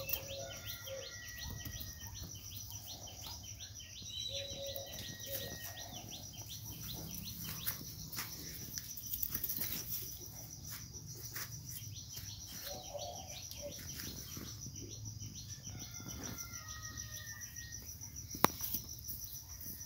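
Insects chirring steadily in a fast, even pulse, with a few short whistled bird calls. Light clicks and rustles come in the middle, and one sharp click stands out near the end.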